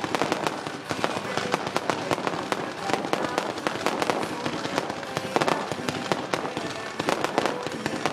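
Fireworks going off in quick succession: many sharp bangs and crackles, one close on another, with music playing underneath.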